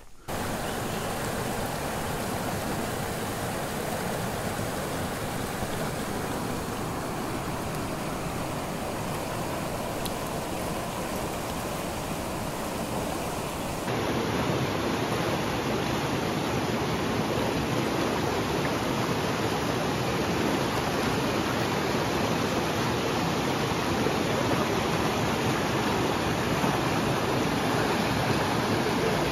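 Steady rushing of a river's flowing water, a continuous even noise that gets a little louder and fuller about halfway through.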